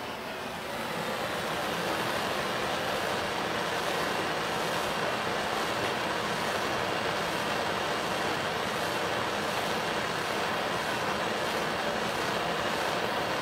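Handheld propane torch burning with a steady hiss as it heats a silver coin blank to anneal it; the hiss comes up about a second in as the flame is opened up, then holds level.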